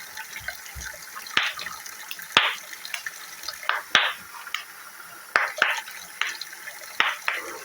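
Kitchen tap running water into the sink with a steady hiss, with a series of light knocks and clinks of kitchenware about once a second.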